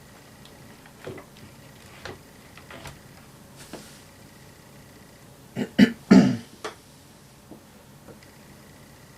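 A few light clicks and taps, then a quick cluster of louder knocks a little past the middle.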